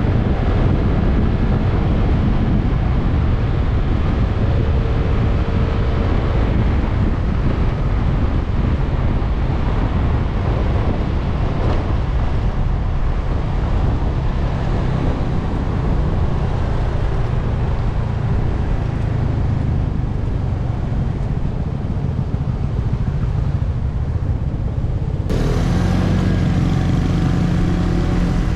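Wind rumbling over the microphone with a scooter's engine running underneath as it rides. About 25 seconds in the wind drops away and the engine settles into a steady idle as the scooter comes to a stop.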